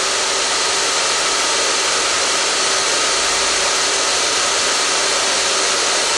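Hair dryer running steadily: a continuous even rush of air with a faint steady hum in it.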